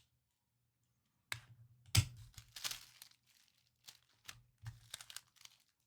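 Plastic packaging crinkling and clicking as it is handled, with a sharper click about two seconds in and a few small clicks near the end.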